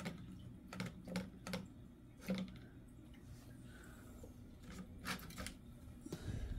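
Irregular sharp clicks and light knocks in a pet turtle's aquarium, about nine spread unevenly, with a cluster near the end, over a low steady hum.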